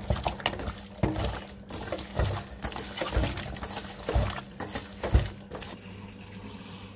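A hand squeezing and mixing seasoned raw chicken pieces with soy sauce in a stainless steel bowl: wet squelching and slapping in irregular strokes, which stop about six seconds in.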